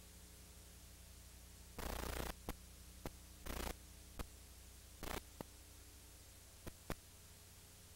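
Steady mains hum and hiss of an old videotape soundtrack with no program sound, broken by three short bursts of static about two, three and a half and five seconds in, and scattered sharp clicks.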